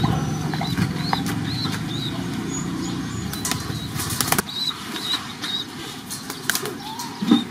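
A pigeon's wings flapping as it takes off, a quick run of wing beats about halfway through and again later. A steady low rumble runs under the first half and stops about halfway, with faint high chirps throughout.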